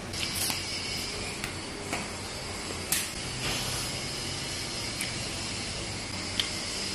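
Eating by hand: a few soft clicks and smacks from chewing and from fingers working food on a plate, over a steady background hiss.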